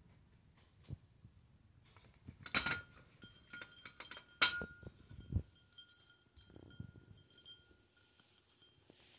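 A ceramic pet bowl clinking against its metal wire stand as a rabbit noses it out of the stand. There are two sharp clinks that leave a ringing tone, then a dull knock and a few lighter clinks.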